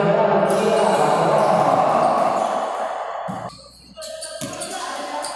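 Basketball game in a gym: players' voices calling out over the ball bouncing on the court. The sound drops away briefly about three and a half seconds in.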